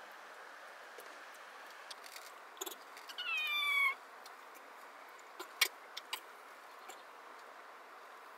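A single short animal call, falling slightly in pitch, about three seconds in, over a steady background hiss. A few sharp clicks follow near the middle.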